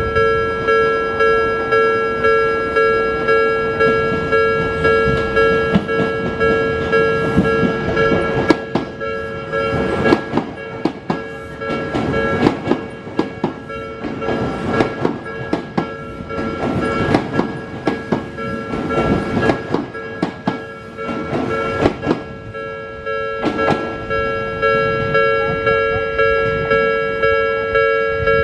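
Japanese level-crossing warning bell dinging steadily, about three dings every two seconds. From about eight seconds in to about twenty-three seconds, an Odakyu 3000 series six-car train passes, its wheels clacking over the rail joints, often in quick pairs.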